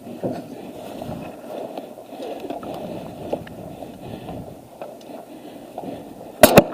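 Steady rustling and scuffing with small scattered clicks, then two sharp airsoft gun shots in quick succession near the end.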